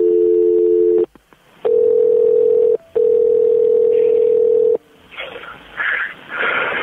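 Telephone line tones on a recorded 911 call while another call is being added: a steady two-tone dial tone until about a second in, then after a short gap a single steady tone, briefly broken near the three-second mark. Near the end a person breathes heavily over the phone line.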